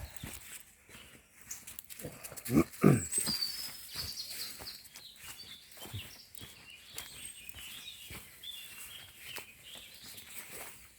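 Footsteps on a woodland path, a steady run of soft scuffs and crunches, with two louder low sounds about two and a half and three seconds in. Birds chirp faintly in the background through the second half.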